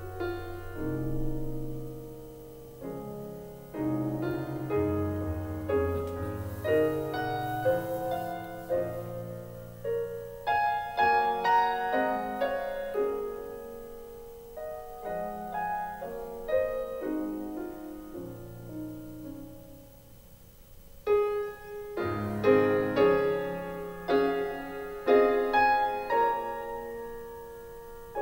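Piano music: a slow run of notes over low held bass notes. It goes quieter about two-thirds of the way through, then swells again with a louder phrase.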